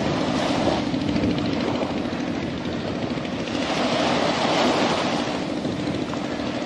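Diesel locomotive engine running steadily with a low hum as it hauls a passenger train slowly toward the microphone, mixed with sea surf and wind noise.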